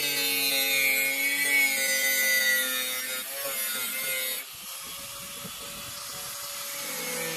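Angle grinder with a thin cut-off disc cutting through thin-walled square steel tube: a steady motor whine under a loud, hissing cutting noise. About halfway through the cutting noise drops away and the grinder's whine carries on more quietly.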